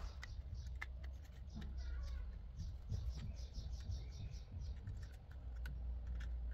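Small plastic device case being handled and pressed back together by hand, with a few sharp plastic clicks and rubbing between them.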